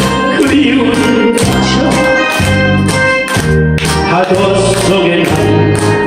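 A man singing a Korean song into a handheld microphone over an amplified backing track with a steady beat.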